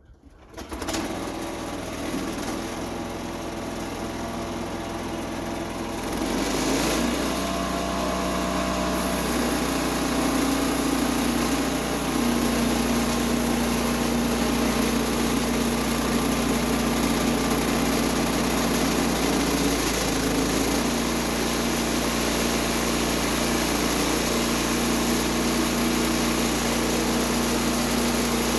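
Gas engine of a Woodland Mills HM126 portable bandsaw sawmill starting about half a second in and running, then revved up about six seconds in and running steadily at full throttle to drive the band blade for a cut.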